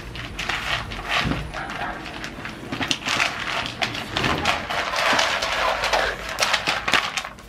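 Several puppies eating dry kibble from a plastic bowl: a dense, irregular run of crunches and kibble clicking against the bowl.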